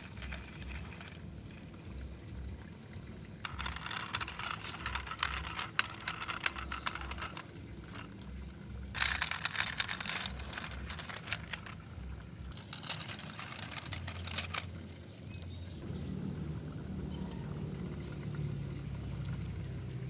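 Small toy trucks' wheels rolling and scraping over dry sandy dirt, a gritty crunching and trickling of sand in several bursts, with small clicks. A low steady hum joins near the end.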